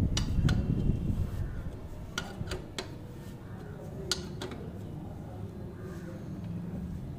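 Steel ring spanner on a TVS Ntorq's engine oil drain bolt as the bolt is tightened, giving sharp metallic clicks in small clusters in the first half, over a low rumble.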